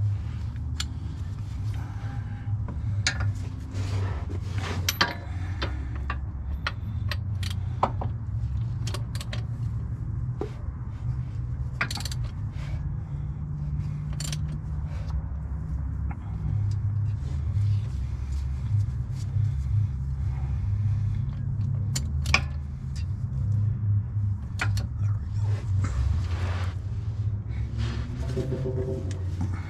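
Scattered metallic clinks and knocks of hand tools and engine parts being handled during piston work in an engine's bottom end, over a steady low hum.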